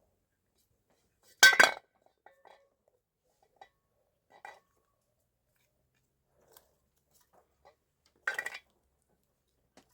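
Dishes and utensils clattering during a meal: two loud sharp clatters, one about one and a half seconds in and another near the end, with a few faint clicks between them.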